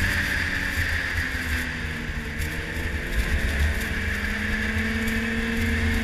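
Yamaha snowmobile running along a trail at cruising speed, heard from the rider's seat, with wind rumbling on the microphone. The engine note eases off around the middle and picks up and rises again in the second half.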